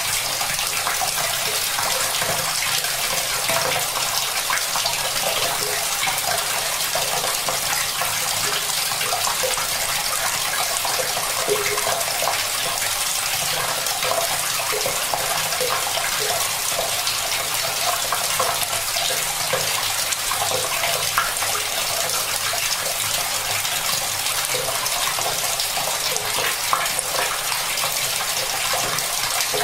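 Tap water running steadily into a bucket as it fills: a constant splashing rush with many small bubbling plops.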